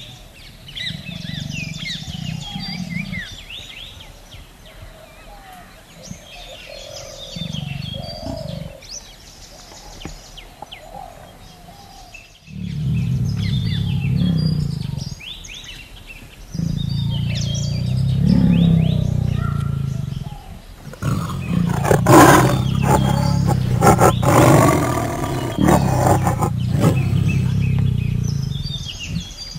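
Tiger growling and roaring in repeated deep bouts that grow longer and louder through the second half, with songbirds chirping in the background.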